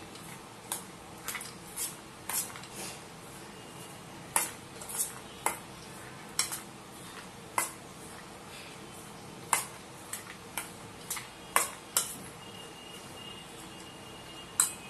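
A metal spoon clinking irregularly against a stainless steel bowl while soaked chana dal and chopped vegetables are stirred and mixed. The clinks come about once or twice a second.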